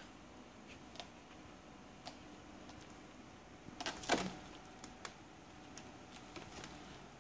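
Kittens scuffling on a carpeted cat tree: scattered light taps and claw scratches. About four seconds in comes a louder cluster of knocks and scraping as a kitten paws at the sisal post.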